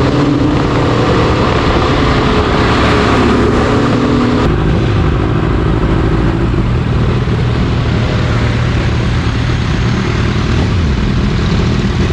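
Kawasaki H2's supercharged inline-four running through an SC Project exhaust while riding, heard through rushing wind and road noise. The engine's pitch drops about four and a half seconds in and falls again near the end, as the revs come down.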